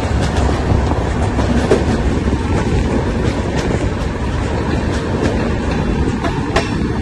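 Indian Railways LHB passenger coach rolling along the track, heard from its open doorway as the train runs into a station: a steady wheel-and-rail rumble with a few sharp clicks of the wheels over rail joints near the end.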